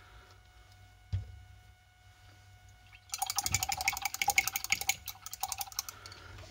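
A paintbrush rinsed in a water jar, clinking rapidly against the glass for about three seconds. A single thump comes about a second in.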